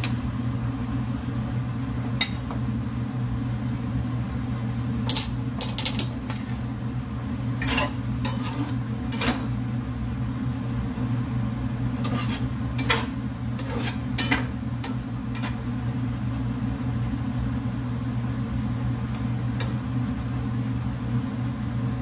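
A spatula scraping and tapping against a nonstick frying pan as marinated paneer cubes are stirred, in scattered clusters of strokes, over a steady low hum.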